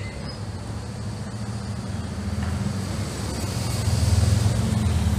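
Motor vehicle engine running with road noise: a steady low rumble that grows louder about four seconds in.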